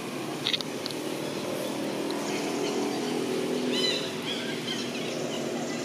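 Outdoor ambience: a steady low background hum with a few short high-pitched chirps, two about half a second in and a small cluster near four seconds.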